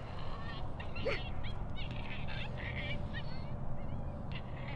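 Canine calls: a single sharp bark about a second in, then a quick run of short, wavering high yips, over a steady low rumble.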